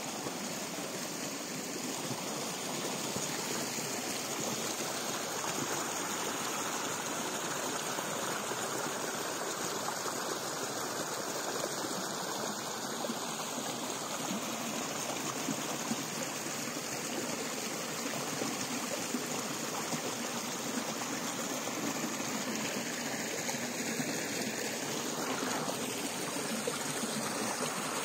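A forest brook flowing: a steady, even rush of running water.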